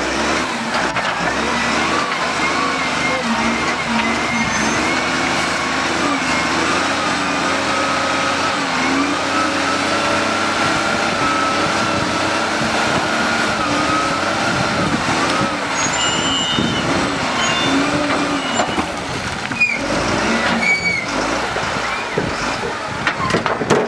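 Motor vehicle engines running steadily, their pitch drifting up and down, with a few short high squeals partway through.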